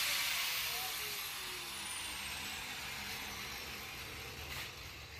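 A spinning machine winding down: a hiss with a whine that falls steadily in pitch, fading slowly.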